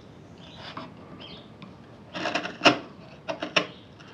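Hand chisel paring the beech end grain between dovetail tails flush to the baseline: short scraping strokes, faint at first and louder in the second half.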